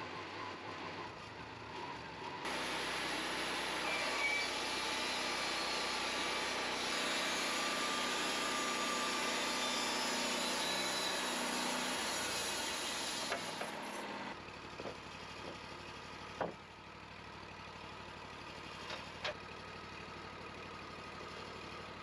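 Wood-Mizer LT40 band sawmill running at speed, its blade cutting a board off a Doug fir log for about twelve seconds, then dropping back to a quieter idle. A few short knocks follow near the end.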